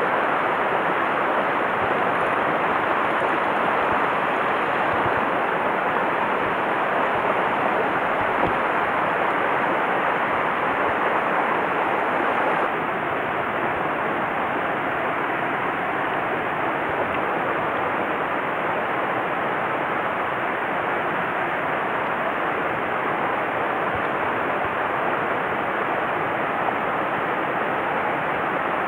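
Mountain stream rushing over rocks in shallow riffles, a steady, even rush of water. It drops slightly in level a little under halfway through.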